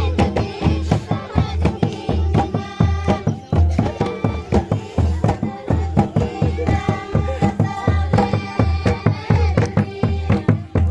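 Santali folk dance music: drums beating a fast, steady rhythm with voices singing over it.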